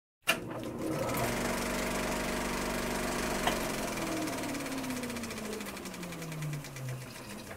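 Film-projector sound effect: it starts with a click, then runs with a fast, even mechanical clatter over a motor hum. The hum falls steadily in pitch over the last few seconds as the projector winds down.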